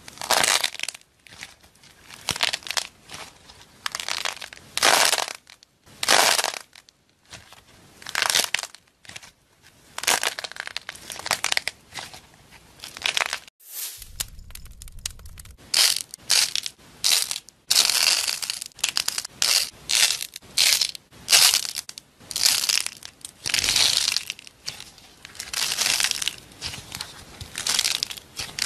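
Dried white clay crackling and crunching as fingers squeeze it and tear it apart, in irregular bursts of under a second each with short pauses between, and a brief break about 14 seconds in.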